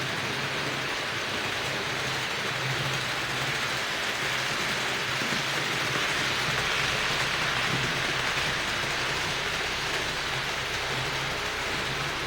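Roco HO-scale BR 80 model locomotive running along the layout track: a steady whirring, rolling hiss of motor and wheels on rail with a low hum that comes and goes, swelling a little about halfway through as it passes closest.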